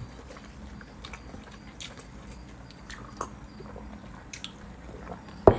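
Close-miked chewing and mouth smacking of crispy pan-fried food with small edible bones. There are scattered small crunches and clicks, and one louder sharp crack just before the end.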